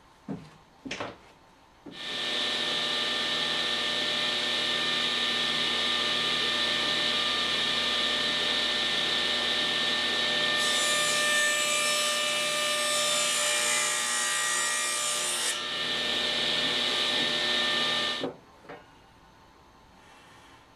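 Table saw motor coming up to speed about two seconds in and running with a steady whine, then the blade cutting through a thin panel for about five seconds in the middle. The saw sound stops abruptly near the end.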